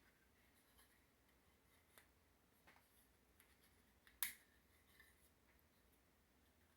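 Mostly near silence, with faint scattered clicks and taps of small plastic toy parts being handled and fitted, a toy figure's little beach chair accessory, and one sharper click about four seconds in.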